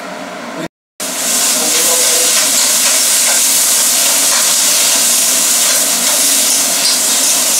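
Sliced carrots and onion sizzling steadily in a hot frying pan as they are stirred. The sound cuts out completely for a moment just before a second in, then the loud sizzle carries on evenly.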